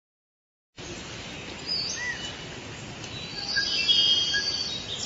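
Forest ambience with birds chirping and whistling over a steady background hiss, starting about a second in.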